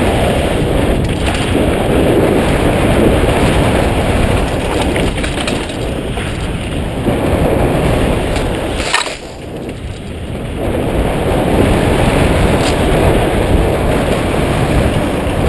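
Mountain bike rolling fast down rough dirt-and-rock singletrack, heard from a camera mounted on the bike: a continuous rumble and rattle of tyres and frame over the ground. A sharp knock comes about nine seconds in, then the noise briefly drops before building again.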